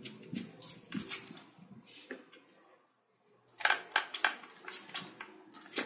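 Hands pressing and smoothing soft biscuit (cold porcelain) modelling clay onto a doll's head: soft rustles and small clicks of fingers and skin on the clay. There is a short dead-silent break around the middle.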